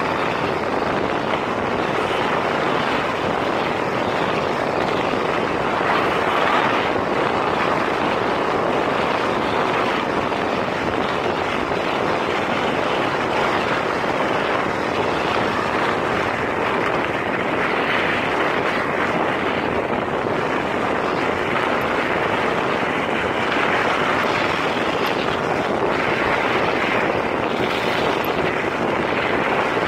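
Steady rushing noise of fast travel along a snow-covered road, like wind and rolling noise, even throughout with no engine or propeller tone standing out.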